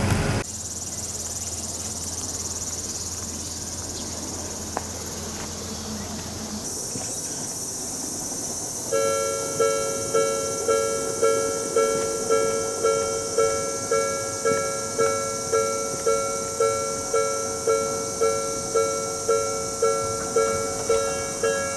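Railroad crossing warning alarm starting up about nine seconds in after quiet outdoor background. It rings in a steady rhythm of about one and a half strikes a second, sounding two clashing pitches at once.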